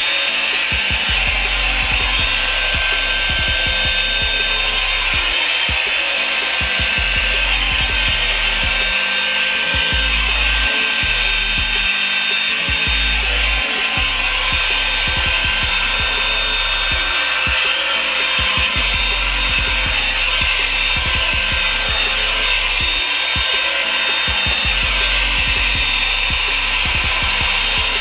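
Revlon hot-air brush blow dryer running steadily, its motor and fan giving a loud whir with a high whine.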